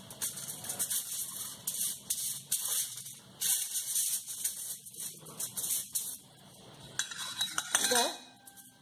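Crinkled aluminium foil rustling under a hand rubbing butter over it, in quick repeated strokes that stop about six seconds in.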